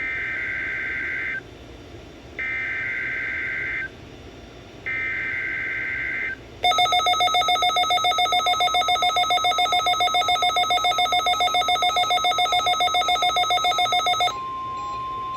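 Emergency Alert System SAME header: three short bursts of screeching data tones. Then a weather radio receiver's alarm beeps in a rapid pulsing pattern for several seconds, with the steady 1050 Hz warning tone sounding beneath it. The warning tone carries on alone after the beeping stops near the end.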